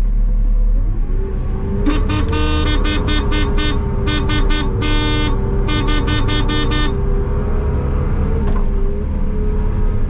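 Skid steer's horn honked in a long run of rapid short blasts, in three bursts, from about two seconds in until about seven seconds in. It is a call for residents to move their parked cars so the lot can be plowed. The machine's engine runs steadily underneath, heard from inside the cab.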